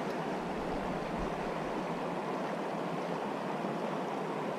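Small mountain creek running: a steady, even rush of flowing water.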